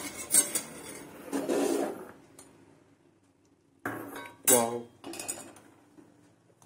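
A steel ladle clinking and scraping against a stainless steel saucepan, with the sharpest clink about half a second in. About four seconds in comes a man's short wordless vocal sound.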